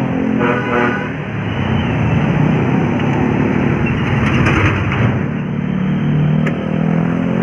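A tourist coach's diesel engine running loud as the bus drives past close by, the engine revving up near the end.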